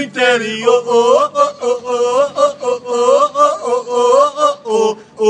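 Two men's voices singing a football supporters' chant unaccompanied, loudly, in short, even, rhythmic syllables.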